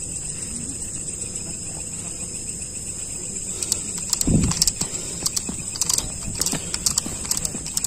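Crickets chirring steadily in a high, unbroken drone. From about halfway, footsteps and the crackle of legs brushing through tall dry grass join in, with one low thump.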